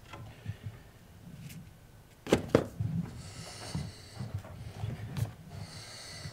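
A kitchen cupboard door knocks shut with two sharp knocks about two seconds in, followed by soft footsteps on a wooden floor and light handling rustle.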